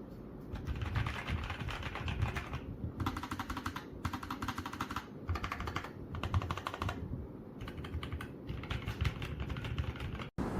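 Typing on a Nuphy Air75 V2 low-profile mechanical keyboard: rapid key clicks in bursts of a second or two with short pauses between, cut off abruptly near the end.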